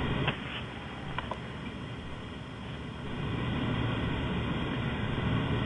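Steady hiss and low hum of an open webinar audio line, with a couple of faint clicks in the first second or so.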